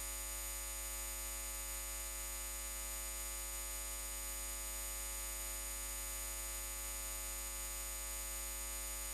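Steady electrical hum and buzz with hiss, made of many fixed tones that do not change in pitch or level.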